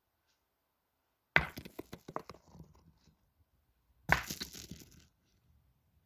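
Steel pétanque boules landing on a gravel terrain twice, each a sharp clack followed by about a second of crunching and rattling gravel.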